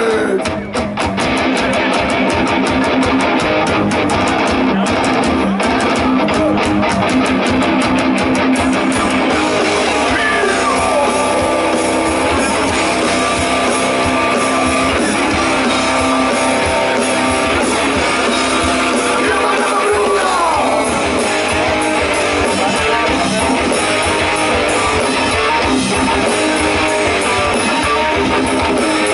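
Rock band playing live: electric guitars and drums in a dense, steady wall of sound. Sharp drum strokes stand out over the first few seconds, and a falling glide cuts through about ten seconds in and again about twenty seconds in.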